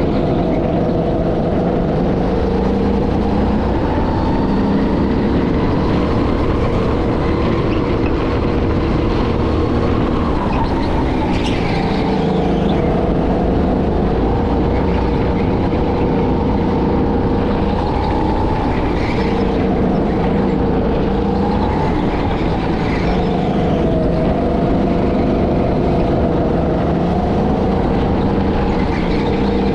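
Go-kart engine running under load, heard onboard, its pitch rising and falling smoothly as the throttle opens and closes through corners.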